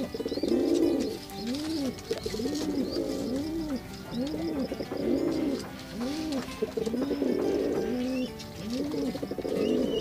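Male pigeon cooing, a low rising-and-falling call repeated steadily, a bit more than once a second.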